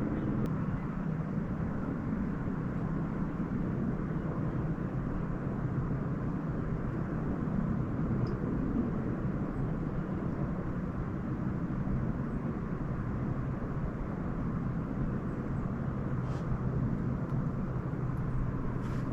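A boat's engine running steadily: an even low hum with no change in speed.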